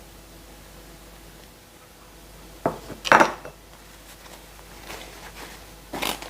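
A utensil clinking and knocking against a dish: a quick cluster of clinks about three seconds in, a few light taps, and one more knock near the end.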